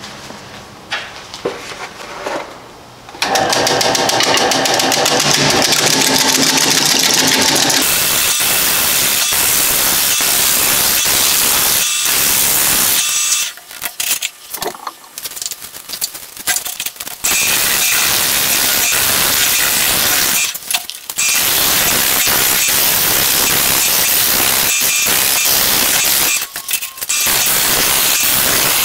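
Roughing gouge cutting bark and green wood off a log spinning on a wood lathe. It starts about three seconds in with a rapid, even rattle, then turns to a steady, loud cutting noise that breaks off briefly a few times as the gouge is lifted from the wood.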